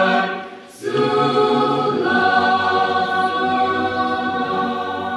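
Mixed choir singing in harmony: a short break for breath about a second in, then a long held chord.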